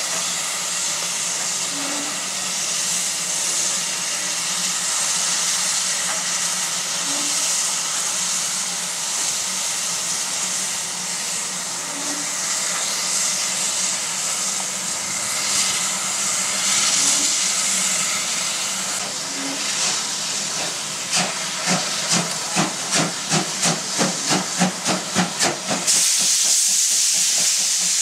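Steam locomotives standing with a steady hiss of escaping steam. About 21 seconds in, a locomotive's exhaust starts beating in chuffs about three a second, quickening a little, as it gets under way. About 26 seconds in, a loud burst of steam hiss comes in.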